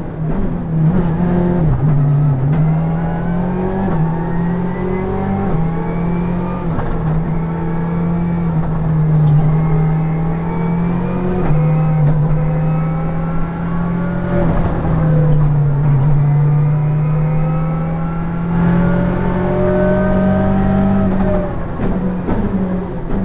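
Škoda Octavia WRC rally car's turbocharged four-cylinder engine heard from inside the cabin under hard driving, repeatedly revving up in rising sweeps and dropping back at each gear change, over a steady low drone.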